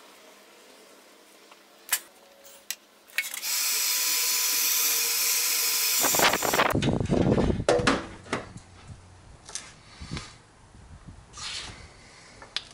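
A few sharp clicks of a wire crimper on butt-splice connectors, then an electric heat gun blowing steadily for several seconds to shrink heat-shrink tubing over the wire splices. Light handling clicks follow.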